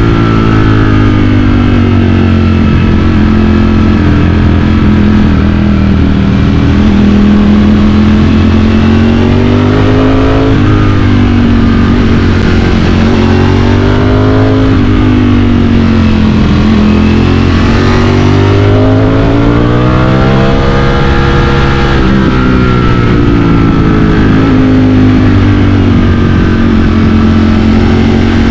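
Ducati Streetfighter V4's V4 engine under riding load, the revs swinging up and down as the bike is throttled on and off through a series of bends, with the biggest climbs about a third of the way in, around the halfway mark and about two-thirds through.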